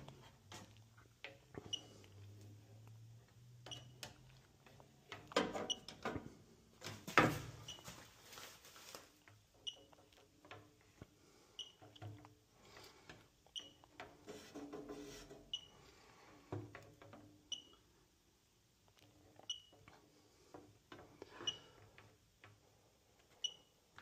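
Electronic refrigerant leak detector (Fieldpiece DRX3) giving a short, high beep about every two seconds at a slow, steady rate while its probe is swept over an evaporator coil. The probe cord and hand add rustling and a few knocks.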